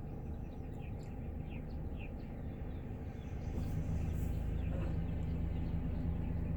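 A vehicle driving, its low engine and road rumble growing louder about halfway through, with birds chirping repeatedly.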